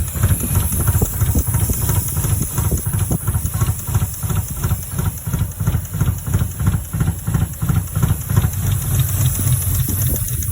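Lexus SC300's 2JZ-GE straight-six idling roughly, its low rumble broken by uneven pulses, with a steady hiss over it. The roughness is taken for misfiring, and the hiss for a vacuum leak.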